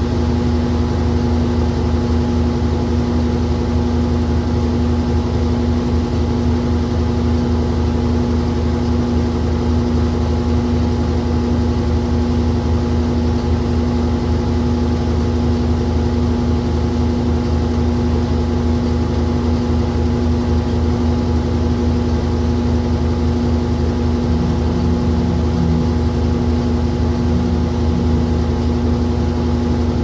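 Old top-loading washing machine running mid-cycle, its motor giving a steady, unbroken hum over a low rumble.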